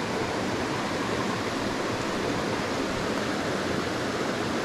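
Small rocky stream rushing steadily over a riffle into a pool, an even water noise with no breaks.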